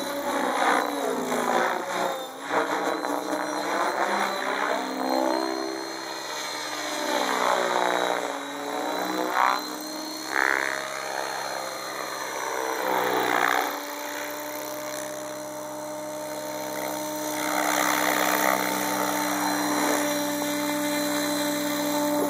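Electric Compass 7HV RC helicopter's motor and main rotor whining, the pitch sweeping up and down as it makes fast passes. About fourteen seconds in it settles into a steady whine as it comes down low to land.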